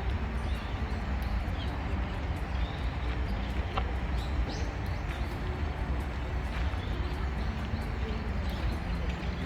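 Outdoor park ambience heard while walking: a steady low rumble, footsteps on the path, and occasional short bird chirps.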